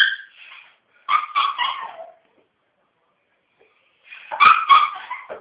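Puppies crying with high-pitched whines in bursts: a short cry at the start, a run of cries from about a second in, and another run near the end.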